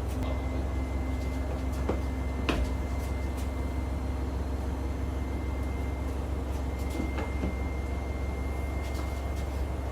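A steady low hum with a faint high whine, and a few light knocks or clicks, the loudest about two and a half seconds in.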